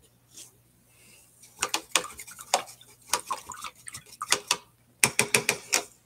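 Paintbrush being rinsed in a water jar, clinking repeatedly against the sides of the container. There are two spells of quick clinks: one from about a second and a half in to about four and a half seconds, and a shorter one near the end.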